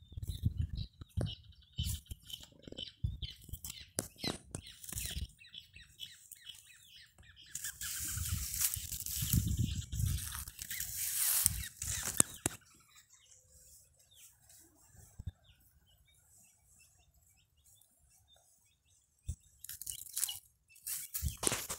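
A cow stripping gliricidia leaves off a branch and chewing them: crackling and tearing of the foliage. A few seconds of loud leaf rustling come in the middle, then it goes quiet before more crackling near the end.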